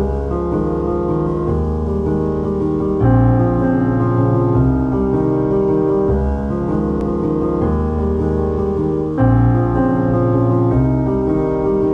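Background piano music: held chords that change every few seconds.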